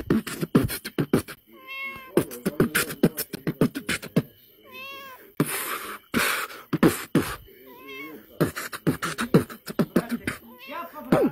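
Human beatboxing, a fast run of mouth clicks, kicks and snare-like hisses, with a cat's wavering meows coming in between three times.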